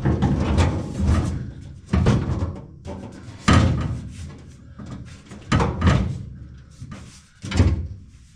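Steel fuel tank knocking and clunking against the car's underbody as it is shoved up into position: a string of about nine irregular, heavy thumps.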